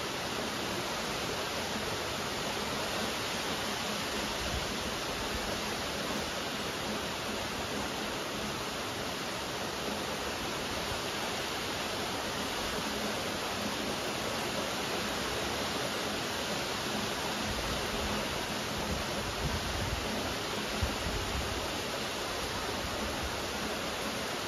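Steady rain falling, an even hiss of drops, with a low rumble coming and going in the second half.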